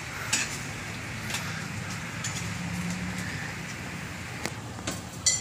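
A few sharp clicks and clinks of a metal spoon and lid against a frying pan, the loudest near the end, over a steady low rumble.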